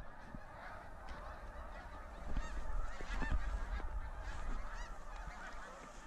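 A large flock of snow geese calling, many overlapping honks at once in a continuous chorus, over a low steady rumble on the microphone.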